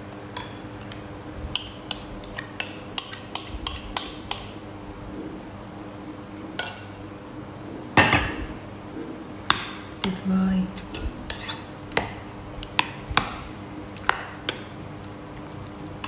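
Metal spoon clinking and scraping against bowls as coconut meat is tipped in and stirred into jackfruit: a string of irregular sharp clinks, with a louder knock about eight seconds in.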